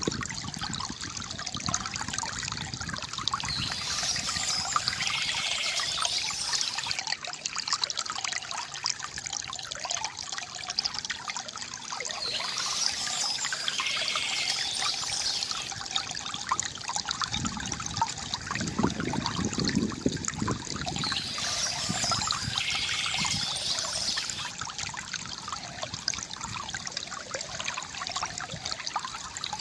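Water trickling and splashing steadily from a bamboo fountain, swelling into a brighter rush about every nine seconds.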